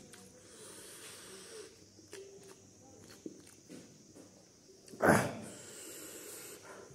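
Faint light clicks of a metal fork and spoon against a ceramic plate while noodles are twirled, and about five seconds in, one sudden loud, short rush of sound that quickly fades.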